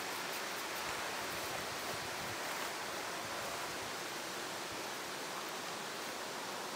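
Steady rustle of wind through tree leaves, an even hiss that holds at one level throughout.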